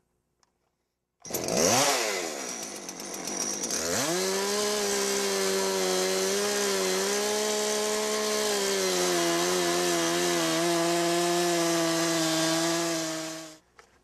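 Chainsaw on a Logosol Woodworker's Mill sawing a flat off the top of a log. It revs up about a second in, its pitch rising and falling, climbs again at about four seconds, then runs at a steady high pitch under load through the cut, and stops shortly before the end.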